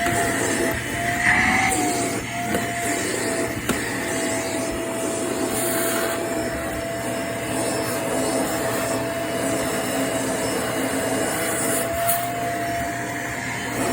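Vacuum cleaner running steadily while vacuuming stairs, its motor giving a constant whine over the rush of suction, with a slight wobble in pitch in the first couple of seconds.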